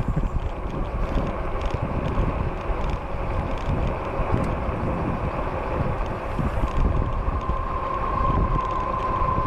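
Fat-tire e-bike riding with wind buffeting the microphone, the loudest sound, over the whine of its electric motor. A steady motor whine comes up clearly about three quarters of the way through.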